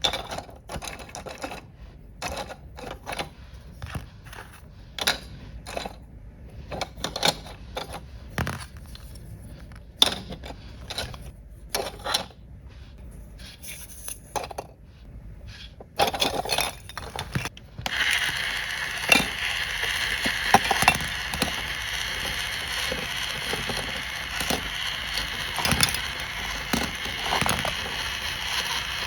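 Small plastic toy pieces clicking and clattering as they are handled and set down. About two-thirds of the way through, a steady rustling hiss sets in, with occasional clicks over it.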